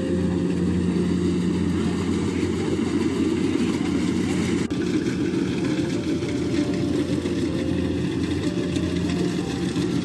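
Kubota DC-70 combine harvester running steadily as it cuts and threshes rice: a continuous, even diesel engine and machinery hum, with a brief break about halfway through.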